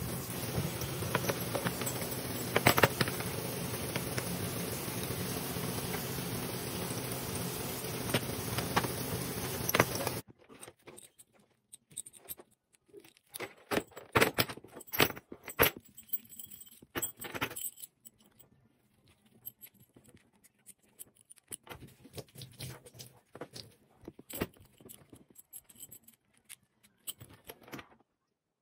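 A handheld shower runs with a steady rush of water for about ten seconds. After a sudden cut the metal buckles and rings of a horse head collar jangle and clink in scattered bursts as it is buckled back together.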